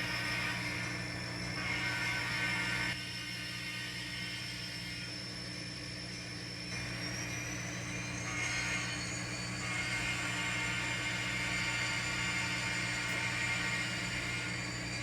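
N scale model train running on the layout: the sound-equipped locomotive's engine sound and motor whir, swelling and easing a few times, over a steady low hum, with a thin high whine slowly rising in pitch in the second half.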